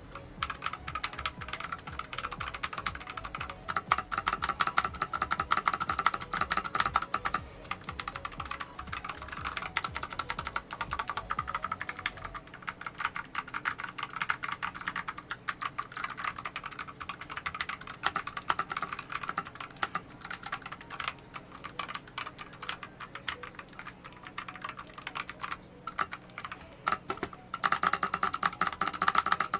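Continuous fast typing on a mechanical keyboard fitted with clicky Kailh Box White switches: a dense run of sharp keystroke clicks with brief pauses now and then.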